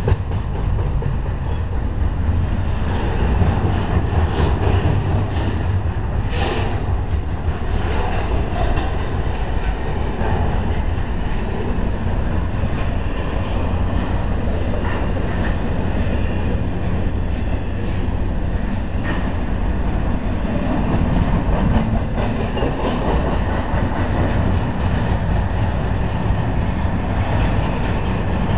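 Double-stack intermodal freight train cars rolling past at close range: a steady rumble of steel wheels on the rails with clickety-clack over the joints, and a sharp clank about six and a half seconds in.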